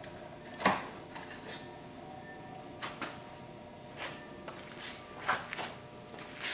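A string of light, irregular clicks and knocks as the lawnmower's plastic dipstick is locked into and pulled out of its filler tube to check the fresh oil level.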